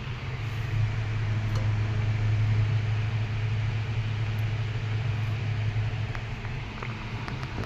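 Dominion 2012C 10-inch oscillating table fan running at its single speed: a steady low hum from its shaded-pole motor under the rush of air from the blades. The sound grows louder from about a second in and then fades, as the oscillating head sweeps past.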